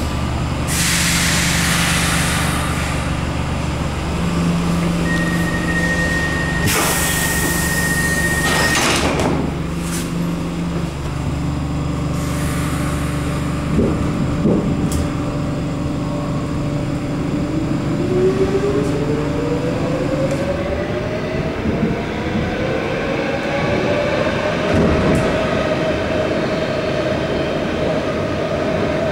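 Stockholm metro C6 railcar standing at a station with a steady low hum from its equipment, broken by two loud hissing bursts and a high tone held for a few seconds. In the second half the train pulls away: the traction motors give a whine that rises in pitch as it accelerates, then levels off.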